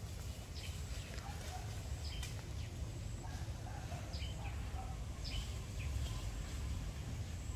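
Outdoor ambience of scattered short bird chirps, a few every couple of seconds, over a steady low rumble.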